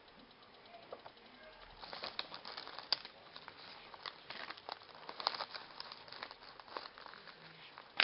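Crinkling and crackling of a trading-card pack wrapper being handled and opened, the cards sliding against it. The irregular crackles begin about two seconds in, and a sharp click comes at the end.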